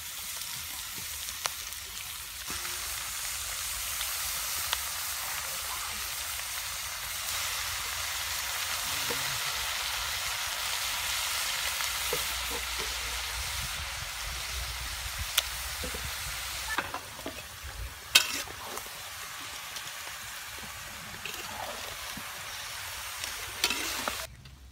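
Chopped beef innards sizzling as they fry in a large metal wok, a steady hiss that is loudest in the first half. A few sharp clicks and knocks come in the later part, and the sizzle drops away suddenly just before the end.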